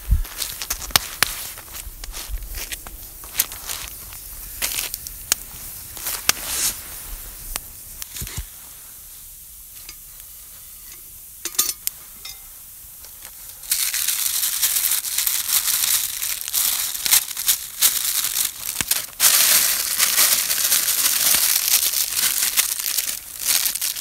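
Brown baking paper crinkling and rustling as bread dough is kneaded and handled on it. The rustling grows louder and steadier about halfway through.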